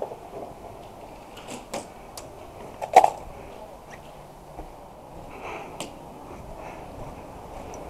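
A few short, sharp clicks and knocks over a low hiss, the loudest about three seconds in.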